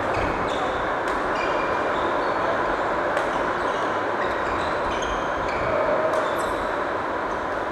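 Badminton play on a wooden court: short squeaks of shoes on the floor and a few sharp racket hits on the shuttlecock, over a steady loud rushing background noise.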